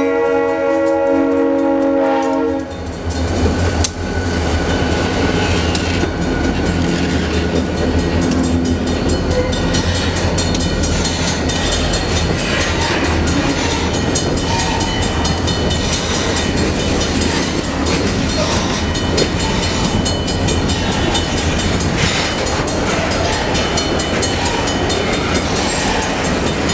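Locomotive air horn sounding a chord, cutting off about two and a half seconds in. Then a train passing close by: a steady low engine rumble with the rattle and clatter of wheels on the rails.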